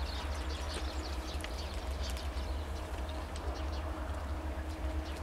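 Low, steady rumble of a passenger train rolling away down the line, with a faint steady hum under it and many short, high chirps scattered over the top.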